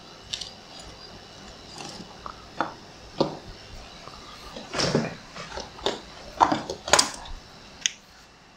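Scattered handling knocks and clicks on an electronics workbench, about eight in all, as wires and gear are moved around; the loudest come about five and seven seconds in.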